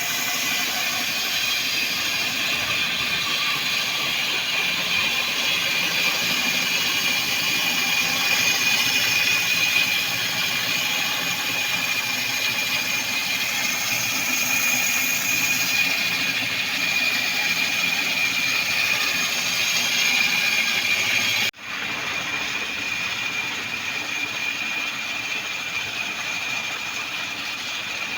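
Sawmill machine running: a steady mechanical whine with a high held tone over a hiss. It breaks off for an instant about three-quarters of the way through, then carries on slightly duller.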